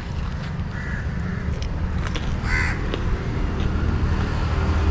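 Crows cawing a few short times, the loudest about two and a half seconds in, over a steady low rumble.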